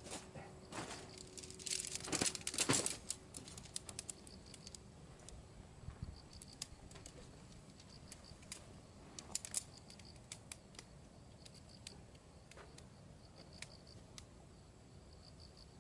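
Crinkling, rustling and scattered clicks of gear being handled, busiest about two to three seconds in and again around nine seconds, over a faint high repeating trill.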